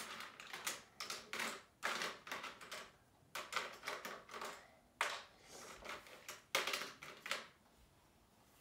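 Small plastic trays, containers and tools being handled on a wooden table: a quick, irregular run of clicks, taps and light rattles that stops about a second before the end.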